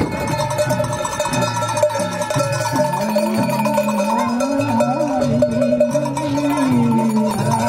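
Traditional folk music: a singing voice over steady ringing tones, with a low line moving in steps underneath.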